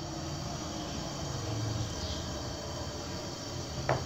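Steady background noise with a low hum and faint high steady tones, and a single light click near the end.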